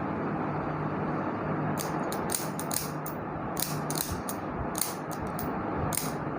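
A run of irregular sharp clicks and rustles, about a dozen, starting about two seconds in and stopping about six seconds in, over a steady low hum.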